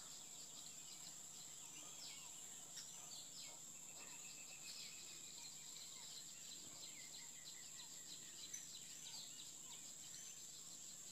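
Faint outdoor ambience: a steady high-pitched hum, like an insect drone, with many short, quick chirps scattered throughout.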